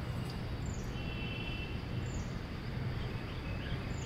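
Steady outdoor background hum with small birds chirping faintly: a short high chirp repeating about every second and a half, and a brief trill of chirps about a second in.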